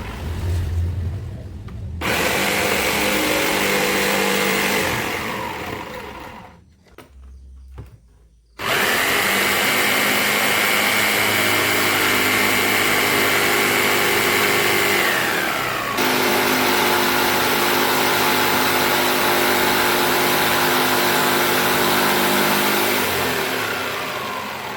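Handheld electric power tool used in woodworking, its motor running with a steady high whine in several separate runs. Each run winds down when it is switched off, with a short quiet gap about a third of the way in.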